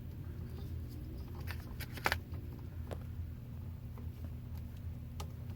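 Utility knife slitting the yellow plastic sheathing of electrical cable: soft scraping and scattered small clicks, the loudest about two seconds in, over a steady low hum.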